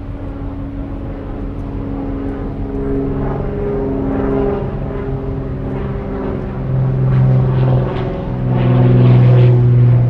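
Single-engine propeller floatplane at takeoff power, running across the water on its floats and lifting off. The engine and propeller grow louder toward the end.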